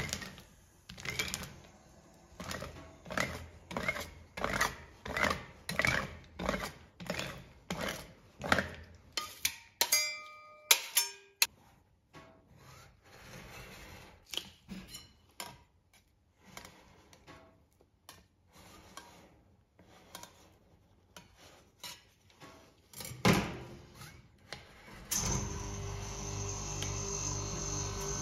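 Steel spatulas scraping across a frozen ice-cream cold plate: quick, even strokes at about two a second, then a few ringing metal clinks. Softer, slower scraping follows as the spatula pushes the ice cream into rolls. There is a single loud knock a little before the end, and a steady hum comes in near the end.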